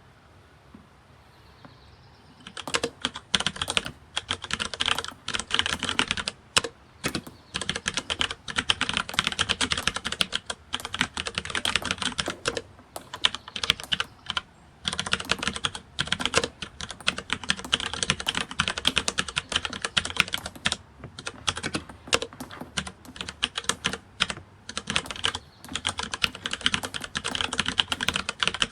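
Rapid keyboard typing: a dense, irregular stream of key clicks with short pauses, starting about two and a half seconds in.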